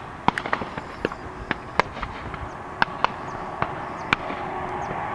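Airbus A340-500 approaching to land, its four Rolls-Royce Trent 500 engines a distant rumble with a faint steady hum that slowly grows louder. About a dozen sharp, irregular clicks sound over it and are the loudest sounds.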